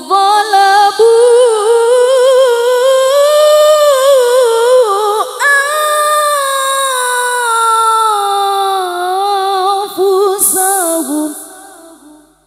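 A woman's unaccompanied singing voice through a microphone, drawn out in long, ornamented melismatic phrases with vibrato. The pitch climbs over the first few seconds, then slowly descends, and the voice fades away near the end.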